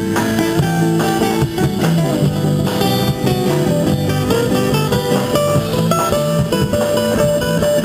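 Live band music driven by guitars: a strummed acoustic guitar with picked electric guitar notes over it, playing without a break.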